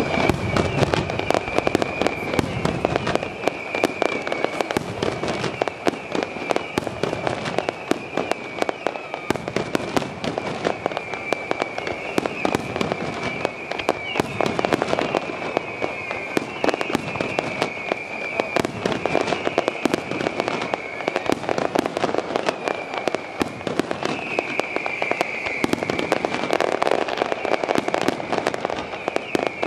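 Fireworks finale: aerial shells bursting and crackling in a dense, unbroken barrage, bang after bang, over a steady high wavering whine.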